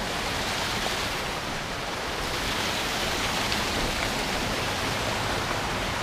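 Steady rush of a small creek tumbling over rocks in a low cascade, an even sound of running water.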